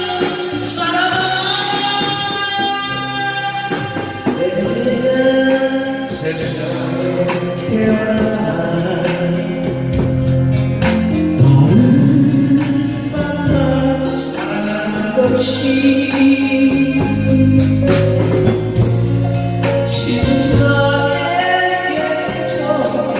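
Live band music: a drum kit keeps a steady beat with regular cymbal ticks under keyboard chords, while a melody line bends and holds over it.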